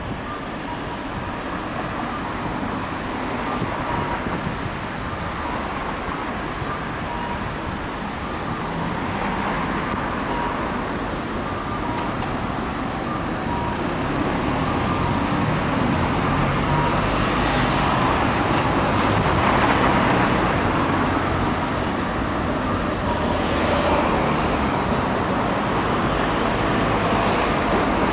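Steady city road traffic, cars and vans driving past, growing gradually louder as a tram draws near on the street-running track.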